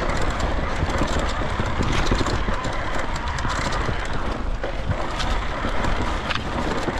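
Electric mountain bike ridden fast along a dirt trail: a steady rush of tyre and air noise with frequent small clicks and rattles from the bike.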